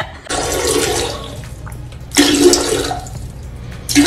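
Toilet flushing: water rushing, with a second loud surge about two seconds in.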